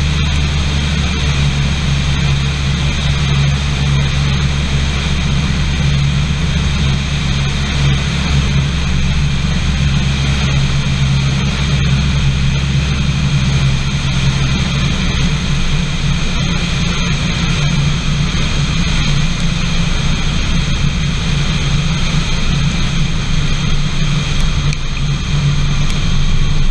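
Rotec radial aero engine running with a steady drone under heavy wind rush, heard from under the wing while the engine trails white smoke in a failure that ends in a forced landing. Near the end the low drone shifts and gets a little louder as the plane comes down onto the grass.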